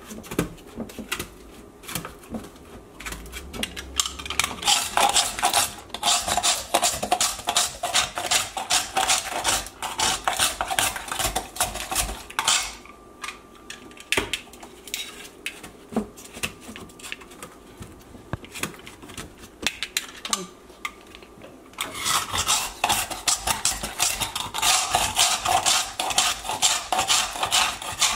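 Hand-held metal ice shaver scraped fast and repeatedly across a block of ice, making a rapid run of raspy strokes. It comes in two long spells, with a quieter stretch of light knocks in between.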